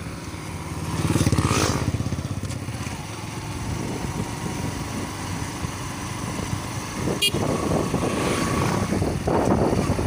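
Motorcycle engine running while riding along a road, with road and wind noise. It swells into a louder pulsing rev about a second in, and there is a short sharp click about seven seconds in.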